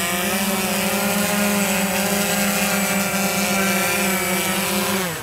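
Walkera QR X350 Pro quadcopter hovering close by, its propellers giving a loud, steady buzz. Near the end the pitch falls sharply and the sound fades as the motors wind down.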